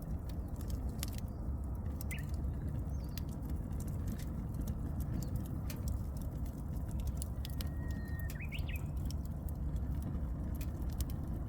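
Wood fire crackling with many small sharp pops over a low steady rumble. Near the middle a Japanese bush warbler (uguisu) sings once: a long held whistle that ends in a quick rising-and-falling flourish.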